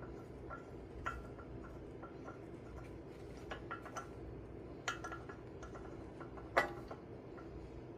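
Light metallic clinks and taps of steel bolts being worked into a tractor wheel hub's bolt holes, with a sharper clink about six and a half seconds in, over a steady low hum.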